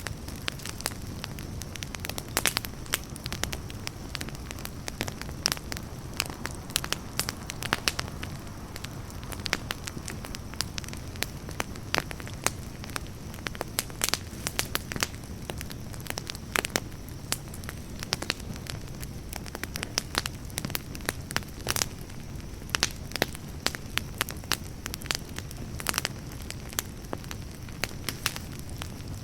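Campfire burning, with a steady low rumble of flames and frequent sharp, irregular crackles and pops from the burning wood.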